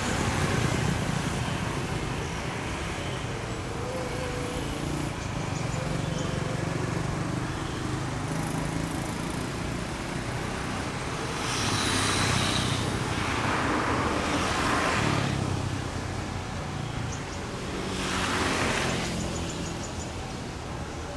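CC 206 diesel-electric locomotive engine running with a steady low hum as the train approaches. Two swells of rushing noise rise and fade, one about halfway through and one near the end.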